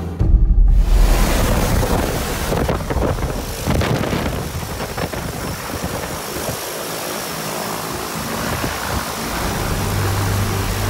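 DHC-6-300 Twin Otter seaplane's twin turboprop engines and propellers running as it moves on the water on its floats, with water rushing and splashing past the floats and wind buffeting the microphone. Music comes back in near the end.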